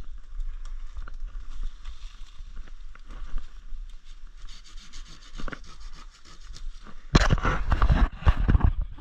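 Rustling of brush and dry leaf litter, with twigs snapping and branches scraping past. About seven seconds in it turns into a much louder burst of crackling and rustling.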